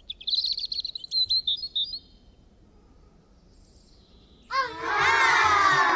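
Birds chirping and twittering in quick high calls for about two seconds, then a pause. About four and a half seconds in, a loud tone with many overtones starts and slides steadily down in pitch.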